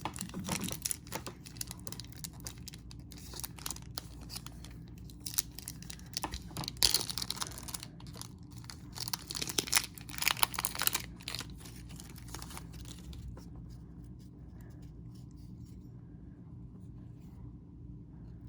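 Wrapper of a pack of baseball cards being torn open and crinkled, in irregular crackling bursts that are loudest about halfway through. After about thirteen seconds it settles to faint handling.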